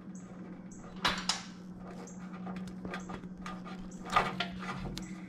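Short clicks and clatter of small parts and tools being handled, in two brief clusters about a second in and about four seconds in, over a steady low hum.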